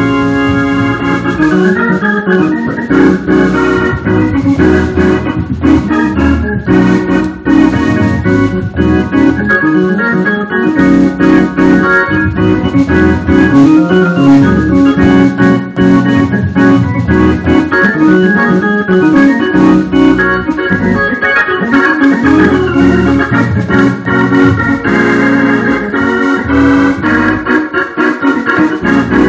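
Two-manual organ playing gospel music: full sustained chords with quick runs and fills, both hands on the keys.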